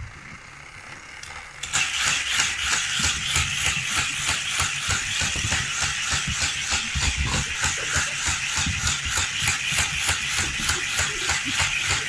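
Battery-powered booster of a Hot Wheels loop track switching on about two seconds in and then whirring steadily, with an even pulse about four times a second as a toy car speeds round the loop through its spinning wheels.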